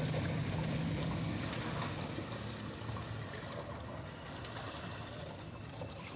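Water pouring in a steady stream from a plastic jug through a metal mesh strainer into a plastic jug, splashing and trickling. A low rumble underneath eases off about two seconds in.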